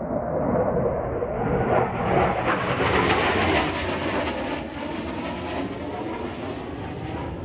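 F-15 fighter jet flying low past, its jet engine noise swelling to a peak about three seconds in and then easing off.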